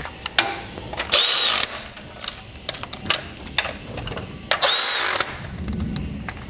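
Milwaukee cordless ratchet running in two short bursts of about half a second each, about a second in and again near five seconds, running down the alternator's 13 mm mounting nuts. Sharp metal clicks of the socket and fasteners come between the bursts.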